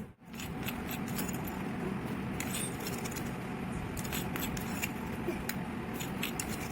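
Coriander seeds being ground by hand with a pestle: a steady gritty scraping and crunching, dotted with small sharp clicks.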